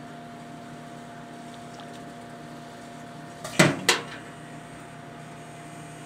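Microwave oven running with a steady hum while vacuum tubes from an old TV burn inside it. About three and a half seconds in, two sharp cracks a fraction of a second apart.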